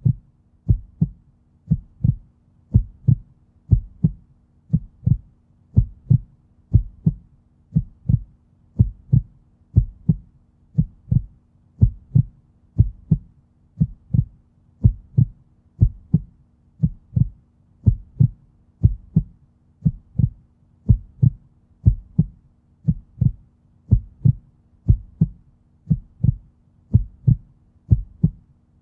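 Heartbeat sound: steady lub-dub double thumps at about one beat a second, with a faint low hum underneath.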